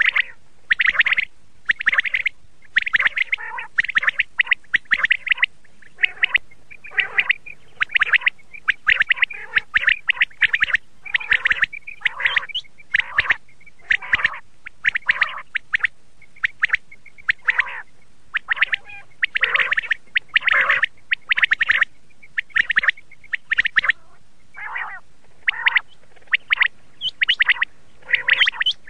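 Common quail (batair) calling over and over: short, sharp call notes, often in quick clusters, about one burst a second.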